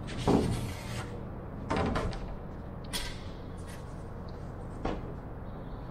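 Wooden knocks and clunks as wood blocks and pieces are handled and set down on a plywood workbench: a loud knock just after the start, a cluster of knocks about two seconds in, a sharper click at about three seconds and a last knock near five seconds, over a steady low shop hum.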